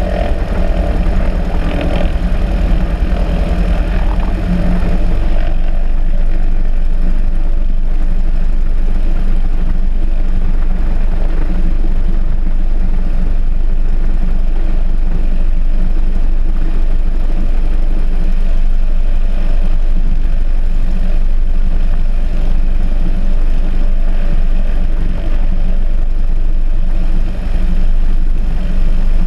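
Single-engine Cessna's piston engine and propeller running steadily at low taxi power, heard from under the wing as the plane taxis.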